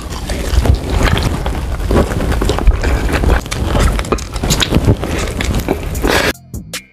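Close-miked chewing of sauce-glazed fried chicken wings: a dense run of small clicks and crunches. Near the end it cuts off abruptly to plucked-string music.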